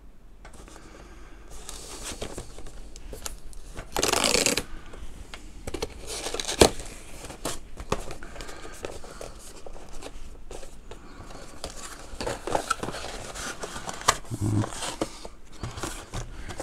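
Cardboard webcam box being opened and unpacked by hand: rustling, sliding and clicking of cardboard flaps and paper inserts, with a loud rasp about four seconds in and a sharp snap a couple of seconds later.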